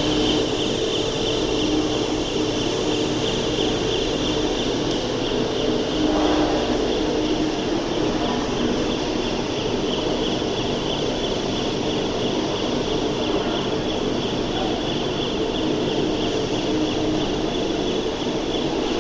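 Industrial furnace plant running: a loud, steady machinery drone with a constant high whine over a low rumble.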